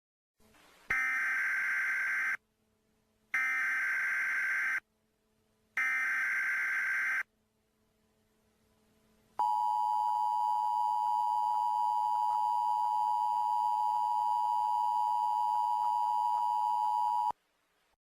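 Emergency Alert System test tones: three identical short bursts of SAME header data, a harsh digital squawk about a second and a half each, then after a short gap the steady two-tone EAS attention signal, held for about eight seconds and cut off sharply.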